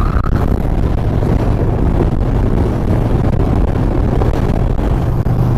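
Yamaha XV950R's V-twin engine running steadily at highway cruising speed, with wind rushing over the microphone.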